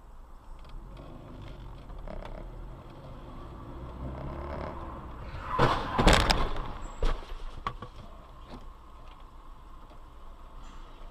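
Two cars colliding at an intersection: one loud crash about halfway through, followed by a couple of smaller knocks, over the steady low road hum of the recording car.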